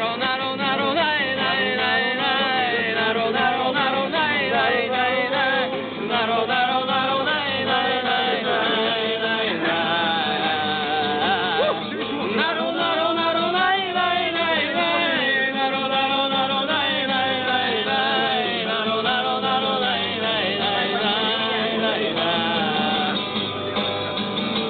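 Several voices singing a campfire song together, accompanied by an acoustic guitar.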